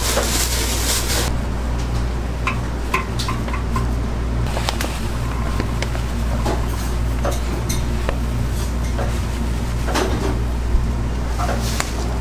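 Steady low hum of kitchen machinery, with scattered light clicks and clatter of bowls and utensils.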